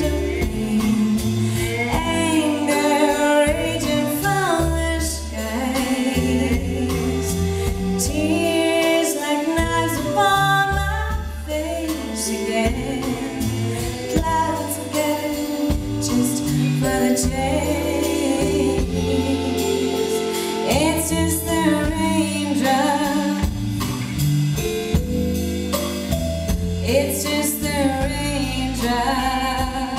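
A woman singing lead vocals with a live band behind her: drums, bass and electric guitar.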